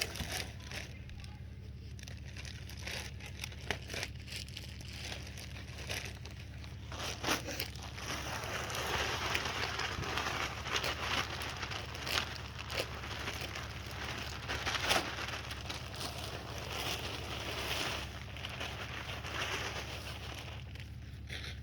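Chunky topsoil being worked into a raised bed: irregular gritty scraping, crunching and clicks, busier through the middle, over a steady low hum.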